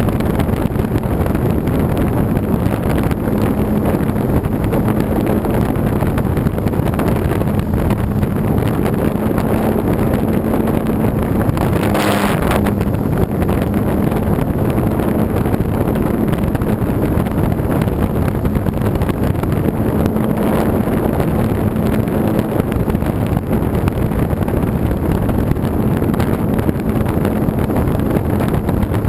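RC model airplane's motor and propeller running steadily in flight, heard from a camera mounted on the plane, mixed with heavy wind noise on the microphone. A short burst of hiss about twelve seconds in.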